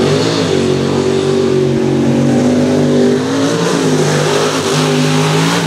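Mud racing truck's engine at wide open throttle as it runs down a mud pit. The engine note holds high, drops about three and a half seconds in, then climbs again.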